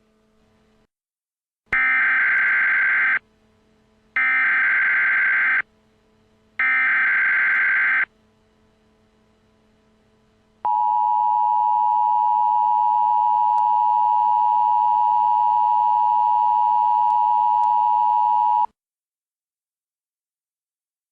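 Emergency Alert System tones: three identical SAME digital header bursts, each about a second and a half long with a second's gap, then the steady two-tone attention signal held for about eight seconds before cutting off suddenly. The sequence marks the start of a new emergency alert.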